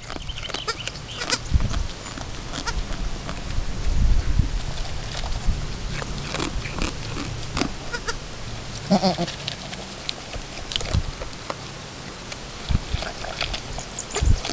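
Chamois Coloured goat doe feeding from a plastic bowl, with scattered clicks and knocks from her muzzle and the feed in the bowl. A single wavering goat bleat comes about nine seconds in.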